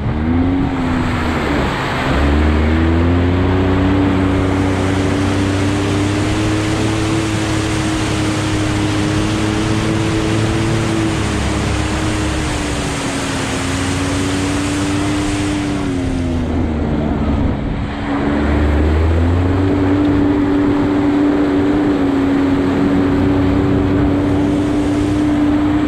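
Can-Am Maverick X3 turbo side-by-side engine running at a steady cruising speed while driving through muddy water, with a rushing hiss over the first two-thirds. The engine note drops briefly about 17 seconds in, then holds steady again.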